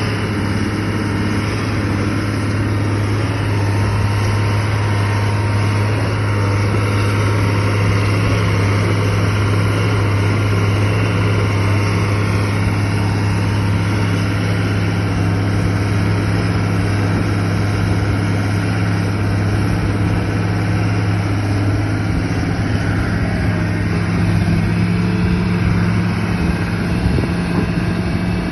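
An engine running steadily at an even speed with a low, unchanging hum.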